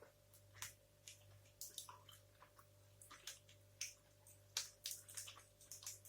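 Close-up chewing of a dense protein bar: quiet, irregular wet mouth clicks and smacks.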